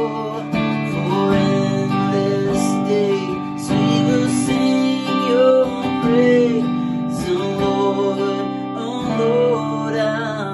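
Electric guitar strumming sustained chords of a worship song, with a man singing the melody over it.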